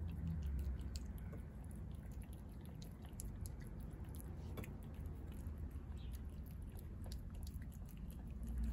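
A cat eating wet seafood cat food from a plate: a run of small, irregular wet chewing and smacking clicks. A steady low rumble sits underneath.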